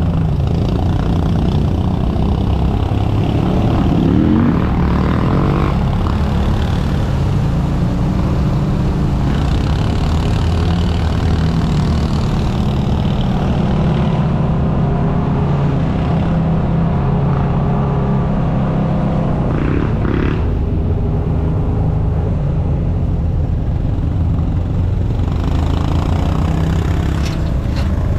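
Engine of a side-by-side UTV heard on board as it drives the trail, running steadily under load with its pitch shifting with the throttle, including a brief rise about four seconds in.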